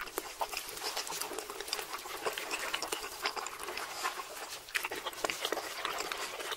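Close-miked wet chewing and lip-smacking of several people eating steak and stretchy melted cheese: a dense run of quick sticky mouth clicks.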